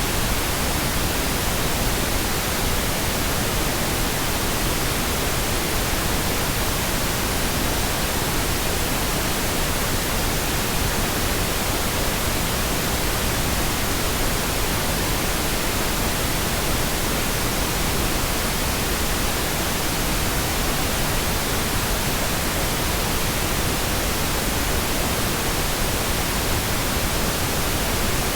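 Synthetic pink noise: a steady, even hiss across the whole frequency range, unchanging throughout.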